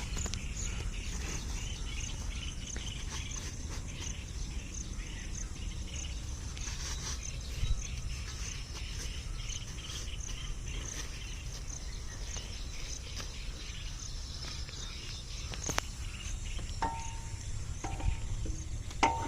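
Insects chirping steadily in a high, pulsing band over a low rumble, with a few light knocks about eight and sixteen seconds in.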